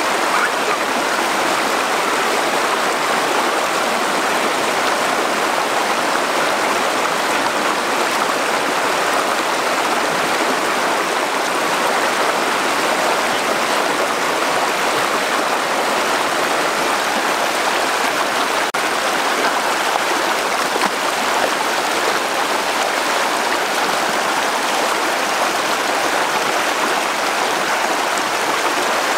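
River water running with a steady, unbroken rush.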